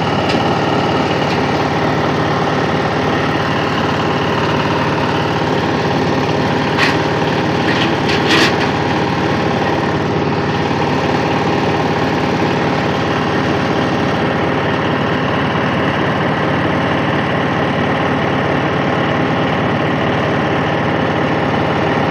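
Engine-driven areca nut husking machine running steadily with a constant drone, with a few sharp clicks near the middle.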